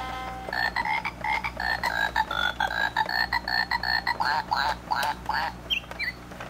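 Circuit-bent Animal Board electronic toy piano: a held tone stops about half a second in. Then the toy's electronic animal-call sound effect repeats rapidly, about three or four times a second, with short gliding chirps near the end.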